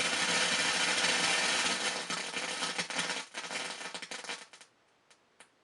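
RMA Crustacean crackle generator putting out dense crackling noise that thins out suddenly about four and a half seconds in, leaving a couple of light isolated pops, as its crackle-intensity trim pot is turned down to set the crackle range.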